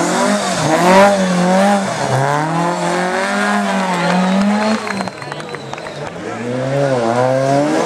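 Race car engine revving hard, its pitch rising and falling again and again as it shifts and lifts for corners. It drops away about five seconds in, then builds again near the end.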